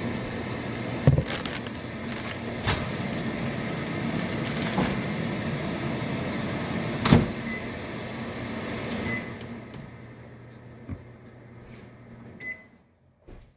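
Microwave oven running with a steady hum that dies away about nine or ten seconds in, with a few sharp knocks over it and a few short high beeps near the end.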